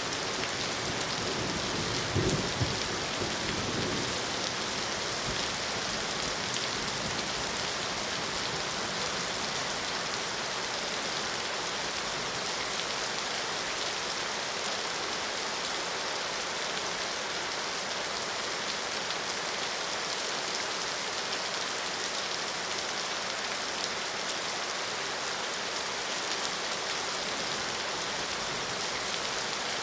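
Steady heavy rain falling on surfaces, an even hiss throughout, with a brief low rumble about two seconds in.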